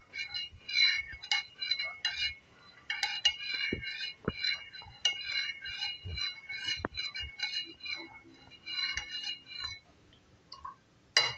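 Metal spoon clinking and scraping against a plastic bowl while stirring jelly powder into hot water. A quick run of light clinks, about three a second, that stops about ten seconds in.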